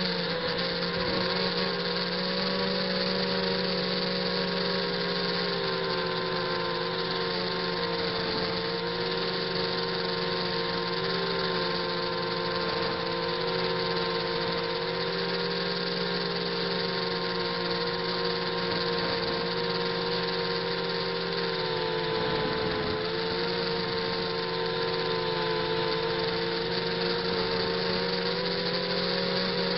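ZMR 250 quadcopter's brushless motors and propellers running with a steady buzzing whine, close-up through its onboard camera. The pitch wavers slightly up and down as the throttle changes.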